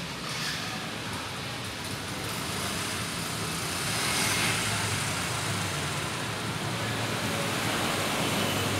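Steady background traffic rumble, swelling a little about four seconds in.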